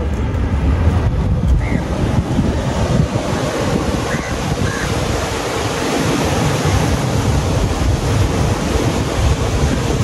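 Sea surf washing steadily, with wind buffeting the microphone.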